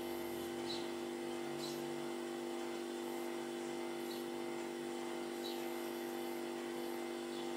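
Four brief, faint house sparrow chirps, the calls of a fledgling begging to be fed, over a steady low mechanical hum that does not change.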